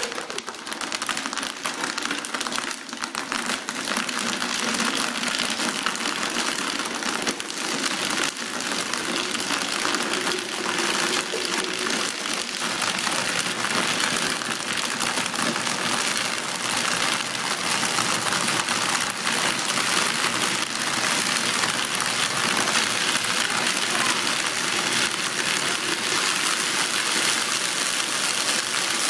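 High-powered countertop blender running steadily, churning ice into a thick chocolate shake.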